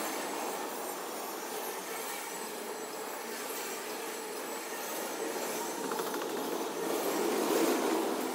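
Intermodal freight train's double-stack well cars and a trailer flatcar rolling past on steel wheels, making a steady rattling, rolling noise that swells near the end.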